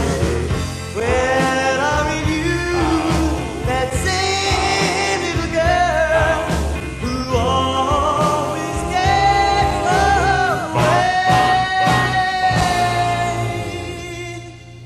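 Slow rock-and-roll ballad sung by several voices in harmony, a lead line with backing voices held under it, over a low bass. The music dips in level near the end.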